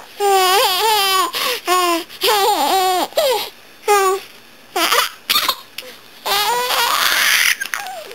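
A young girl's high-pitched voice talking in short phrases.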